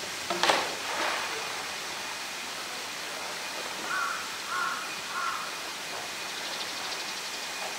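A crow caws three times in quick succession over a steady rushing noise, with a single sharp knock about half a second in.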